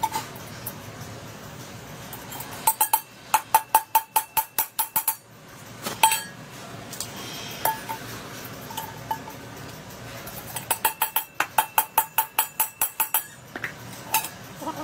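A hand-hammered copper pot being tapped with a small metal tool: two runs of quick light strikes, about five a second, each ringing briefly, with a single harder knock between them.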